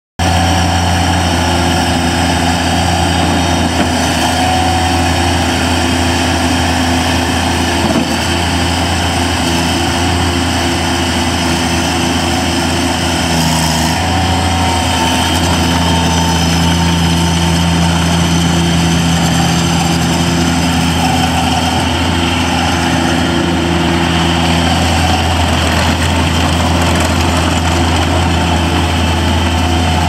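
Bobcat MT85 walk-behind mini track loader's diesel engine running steadily as the machine drives on its rubber tracks, its note shifting slightly a few times.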